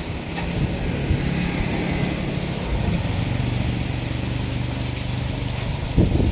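A vehicle engine running steadily at an even pitch, under a low rumble.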